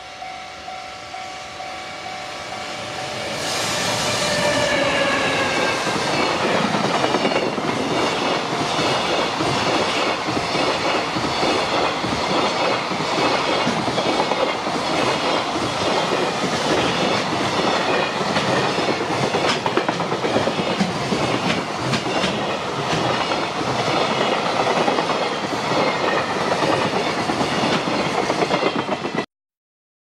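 JR Freight container train passing close by: the electric locomotive comes past about three and a half seconds in, followed by a long string of Koki 107 container wagons rumbling, with clickety-clack from the wheels over the rail joints. At the start a level-crossing warning bell rings at an even beat. The sound cuts off just before the end.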